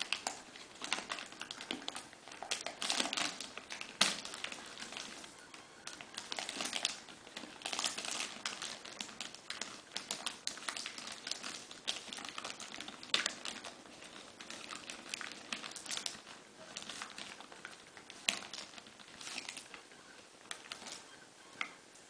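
A thin transparent plastic dust bag crinkling and rustling as it is handled and pressed down inside a clear plastic container, with irregular crackles and a few sharp clicks; it dies down near the end.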